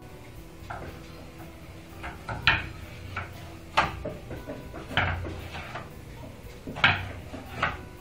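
A string of short, sharp knocks and clatters at irregular intervals, some in quick pairs, like cupboard doors and dishes being banged in a house at night.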